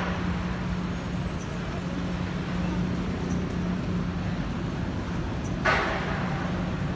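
Street traffic noise with a steady low engine-like hum, and one short hiss about five and a half seconds in.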